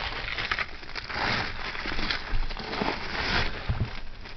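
Cellophane wrap crinkling and rustling in irregular bursts as it is pulled off the top of a large glass jewelry jar, with a few low knocks of handling.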